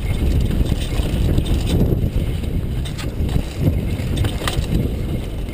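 Mountain bike riding fast down a loose dirt trail: wind rumbling over the microphone along with tyre and drivetrain rattle, with a few sharp clacks as the bike hits bumps.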